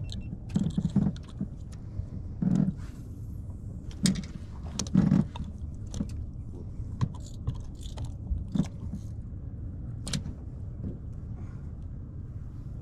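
Fishing pliers working a hook out of a small catfish at the boat's side: irregular short clicks and knocks with a few low thuds, over a steady low rumble.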